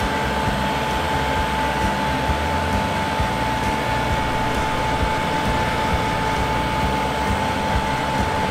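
Kubota MX5200 tractor's diesel engine running steadily while the front loader lowers a log onto a trailer, with a steady high whine over the engine.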